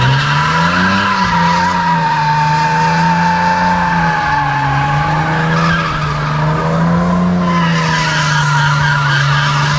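Car doing a burnout: the engine revs up in the first second and is held at high revs while the drive wheels spin in place. The tyres give a steady, high-pitched squeal.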